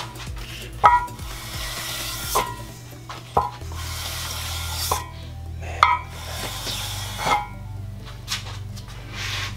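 A stone rubbed back and forth across the machined aluminium deck of a Toyota 7M cylinder head, lapping off the burr left by resurfacing. It makes long scraping strokes, with a sharp ringing clink about every second and a half as the stone knocks against the metal.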